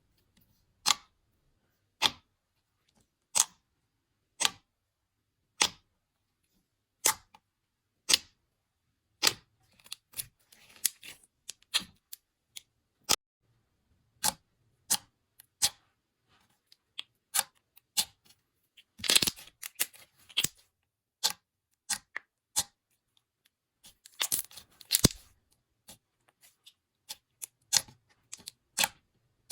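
Slime being pressed and poked, giving sharp clicking pops about once a second, with short bursts of crackling in places.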